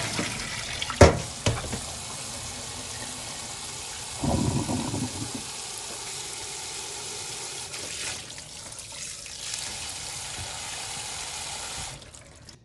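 Water running steadily from a kitchen tap into a sink, with a sharp knock about a second in and a louder stretch of splashing around four seconds in. The flow stops near the end.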